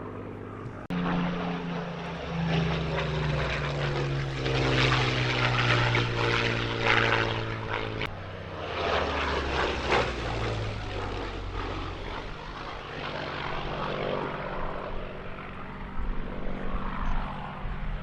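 Rolls-Royce Merlin V12 engine of a Spitfire in a display flypast: a loud, steady engine and propeller drone whose pitch sinks a little as the plane passes. The sound changes abruptly twice, about a second in and about eight seconds in.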